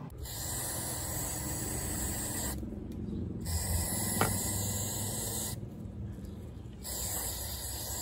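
Aerosol carburetor cleaner sprayed through a thin straw into a carburetor float bowl, in three long hissing bursts with short breaks between them, flushing old corrosion out of the bowl.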